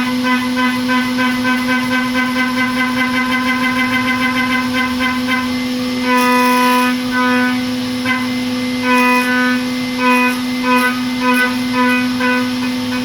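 Haas DM-2 CNC mill cutting steel in high-speed machining with an endmill: a loud, steady, pitched whine with many overtones. The upper overtones pulse rapidly for the first few seconds, then come and go in bursts as the tool moves through the cut.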